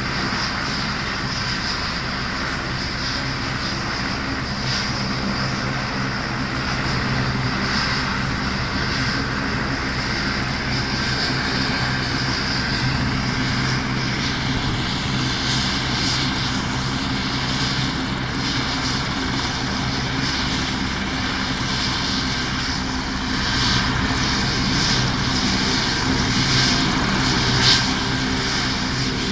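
AgustaWestland AW101 helicopter running on the ground, its three turboshaft engines whining steadily under the turning main and tail rotors. A higher whine joins about halfway through, and there is a brief sharper sound near the end.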